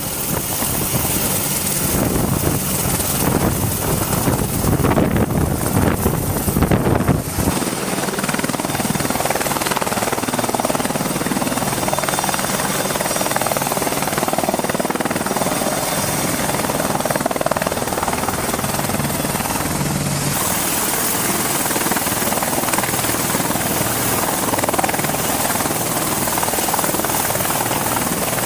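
Apache attack helicopter running: steady rotor and turbine noise with a thin high whine. A heavy low rumble fills the first seven seconds or so, then drops away abruptly, leaving the steadier rotor and engine sound.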